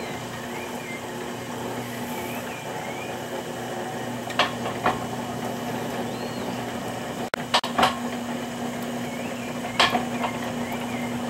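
Potter's wheel spinning with a steady hum while clay is thrown on it, broken by a few sharp knocks. Faint wavering high chirps sound in the background.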